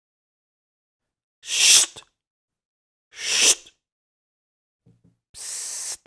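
A person whispering 'psst' three times. The first two are short, sharp hisses about a second and a half apart, each ending in a faint 't' click. The third, near the end, is longer and quieter.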